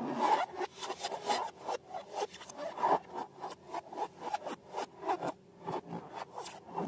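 Slime and balloons being handled by hand: a quick, irregular run of short rubbing, crackling strokes, several a second.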